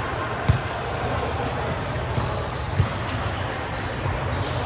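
A ball thumping twice on a gym floor or against hands, once about half a second in and again near the middle, over the steady background noise of a large hall.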